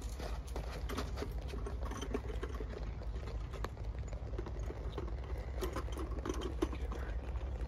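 Rustling and scattered clicks of a weigh sling and its straps and metal fittings being handled and hooked onto a hanging dial scale, over a steady low rumble.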